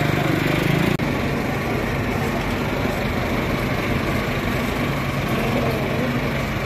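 Tractor diesel engine running steadily at a low, even pitch, with a brief break about a second in.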